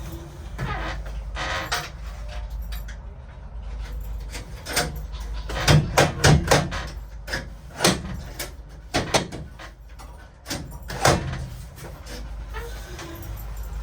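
Irregular sharp knocks, clicks and clatters from a cabin door and its lock hardware being worked on, a cluster of loud knocks about six seconds in and single ones later, over a low steady rumble.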